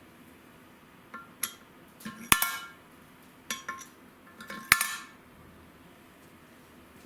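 Steel engine valves clinking against their freshly cut seats in a VAZ cylinder head as they are set in place: a handful of sharp metallic clinks with a short ring, the two loudest about two and a half seconds apart.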